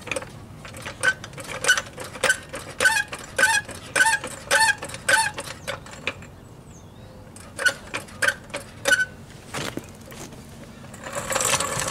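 Repeated short squeaks, each with a sharp click, about two a second in two runs. A brief rushing hiss follows near the end.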